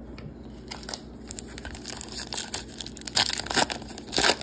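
A 2024 Topps Heritage baseball card pack wrapper being torn open and crinkled by hand, in a run of crackling rips that grow louder, the loudest over the last second and a half.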